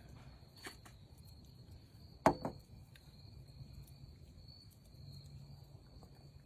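Crickets chirring steadily at night, with a few light clicks and one sharp clink about two seconds in, a utensil striking the cast iron skillet being eaten from.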